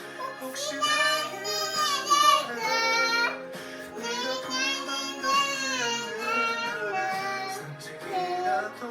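A song: a high voice sings a wavering melody over held instrumental notes.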